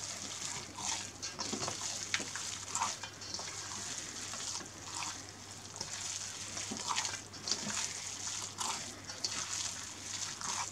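Hands kneading a moist, buttery yeast dough in a stainless-steel bowl: irregular wet squelches and slaps, roughly one a second.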